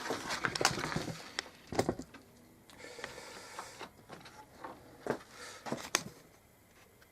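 Light clicks and knocks of objects being handled and set down on a workbench, with a short soft rubbing sound about three seconds in.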